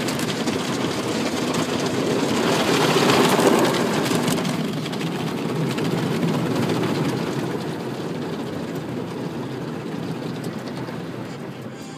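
Automatic car wash heard from inside the car: cloth brushes and water scrubbing over the body and windows as a loud, even rush, swelling about three seconds in and then fading away.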